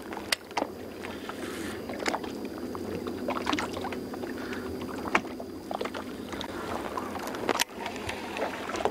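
Small waves lapping and slapping against a bass boat's hull over a low steady hum, broken by several sharp knocks.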